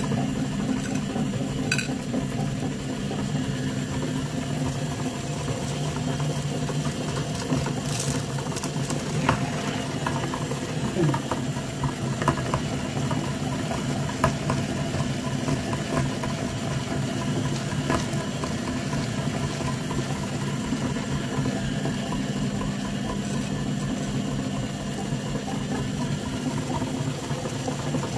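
Electric meat grinder running steadily with a constant motor hum as it grinds sugar-coated chocolate candies, with a few sharp clicks scattered through.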